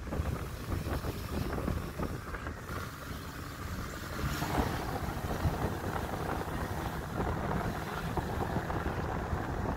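Moving car on the road: wind buffeting the microphone over steady road and engine noise.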